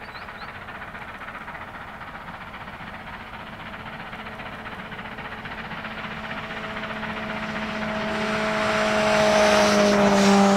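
NSW 38 class steam locomotive 3801 working hard at the head of a passenger train as it approaches: a steady rush of exhaust and running noise that grows louder from about halfway through and peaks near the end. Steady tones sound under it in the second half and dip slightly in pitch at the very end.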